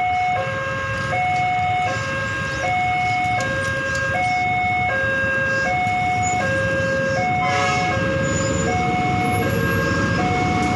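Railway level-crossing warning alarm sounding an alternating high-low two-tone electronic signal, about one cycle every second and a half, warning that a train is approaching. Near the end the rumble of the approaching diesel locomotive grows beneath it.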